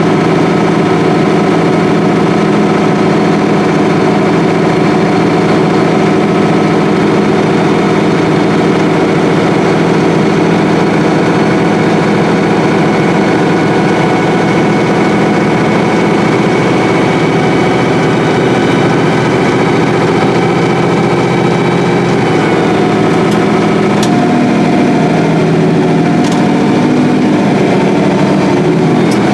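Combine harvester running steadily while harvesting soybeans: a constant engine and machinery drone with several steady tones, shifting slightly in pitch about three quarters of the way through, with a few faint clicks near the end.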